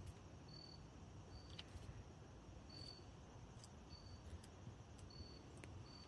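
A cricket chirping faintly, one short high chirp about every second.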